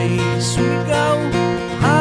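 Background music: a strummed acoustic guitar song, with a singing voice holding wavering notes about a second in and again near the end.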